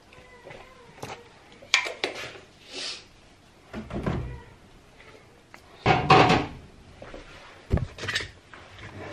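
Kitchen fridge being opened and things moved about inside it: a series of separate knocks and clunks, the loudest about six seconds in.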